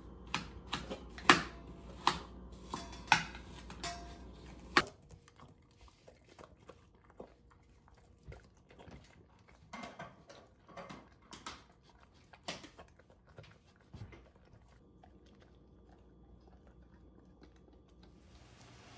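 A Doberman eating from her food bowl, chewing with irregular soft clicks and crunches. It is preceded by a run of louder, sharp clicks and knocks over a low hum in the first five seconds.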